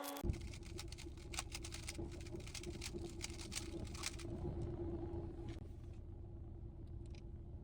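Rubik's cube being turned: quick plastic clicks and clacks of its layers, dense for the first five seconds and sparser after, over a steady low rumble.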